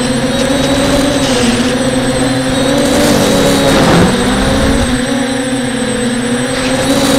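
Propellers and motors of a radio-controlled model aircraft, heard from on board, making a steady buzzing drone. The pitch dips briefly about four seconds in as the craft banks, then recovers. The owner says the props are poorly balanced.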